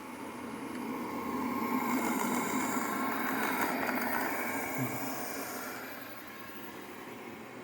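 Xiaomi Mop P robot vacuum running, its suction fan and brushes whirring, growing louder as it comes close and fading again after about six seconds. A small knock about five seconds in.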